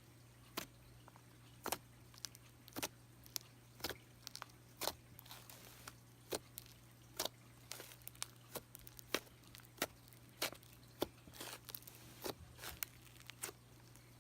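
Thick cream-cheese-textured slime being pressed and squished by hand, giving irregular sharp pops and clicks about one or two a second.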